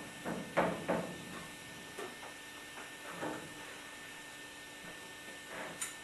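Scattered short knocks and clanks of tools and metal fittings being handled while pipework is connected at a water heater, over a low steady hum. A quick run of knocks comes in the first second or so, then single ones and a pair near the end.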